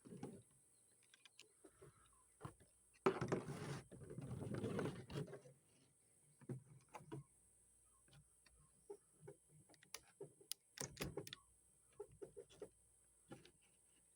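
Handling noise from a Thompson submachine gun being taken apart: scattered metallic clicks and knocks, with a longer stretch of scraping and rubbing about three seconds in and a quick run of clicks near the ten-second mark, as the lower receiver is worked loose from the upper after the takedown button is pressed.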